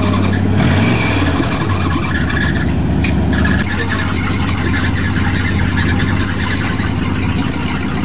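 Pickup truck engine working under load while crawling through a muddy, water-filled ditch. It revs up briefly about a second in, then eases to a lower, steadier note around the middle, with water splashing around the wheels.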